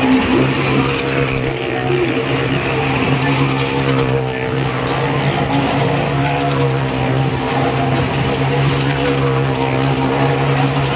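Motorcycle and car engines running round the vertical wooden wall of a well-of-death drum, a loud, steady engine note held at an even pitch.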